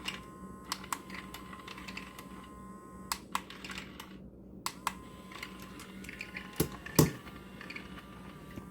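Motorised UFO cat toy running in its moving mode: a steady motor hum under irregular clicks and knocks as it whirls around, with a louder knock about seven seconds in.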